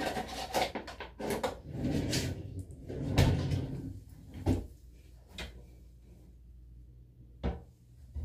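Bathroom closet door and the items on its shelves being handled: clattering and rustling for the first few seconds, then three separate sharp knocks spread over the second half, as the door is shut and things are set down.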